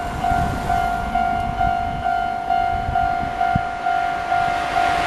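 Japanese railway level-crossing warning bell ringing in a steady, even repeating ding, about two a second, signalling that a train is approaching.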